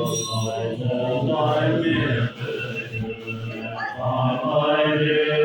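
Buddhist lamas chanting prayers together in low, sustained voices.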